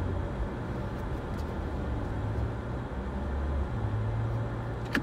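Car engine and tyre noise heard from inside the cabin while driving slowly, a low hum that shifts in pitch a few times. A sharp click comes right at the end.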